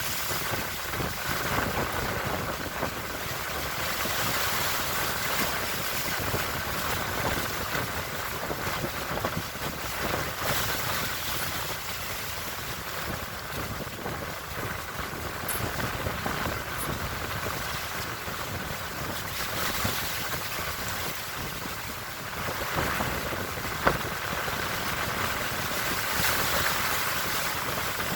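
Strong wind gusting and buffeting the microphone over the noise of the sea, rising and falling in gusts. A single sharp knock sounds near the end.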